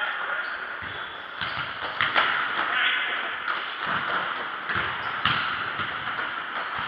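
Futsal ball being kicked and bouncing on a hard indoor court, a series of sharp thuds a second or so apart, echoing in a large hall.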